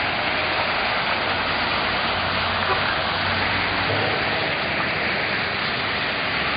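Steady, even rushing noise of outdoor ambience, with a faint low hum that stops about two-thirds of the way through.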